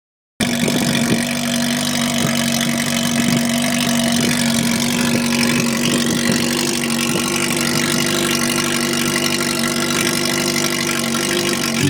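Honda CB400 Super Four Revo's fuel-injected four-cylinder engine idling steadily, heard through its exhaust pipe.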